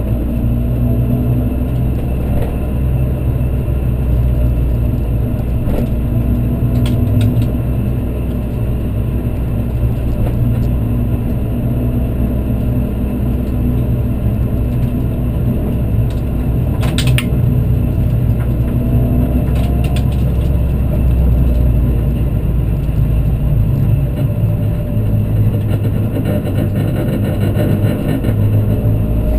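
Supercharged 1.6-litre Toyota 4A-GZE four-cylinder engine of a Corolla race car, heard from inside the stripped cabin, running at steady, even revs at low pit-lane speed. A brief sharp clatter comes about seventeen seconds in.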